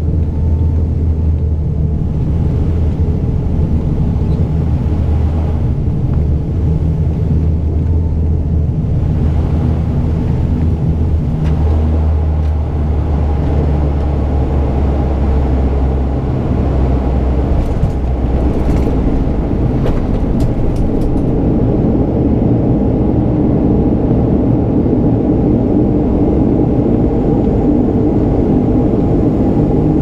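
Cabin noise of a de Havilland Canada Dash 8-100's turboprop engines and propellers, a loud steady low drone on short final. After touchdown, about halfway through, the low drone gives way to a higher, slightly louder rush as the aircraft rolls out on the runway.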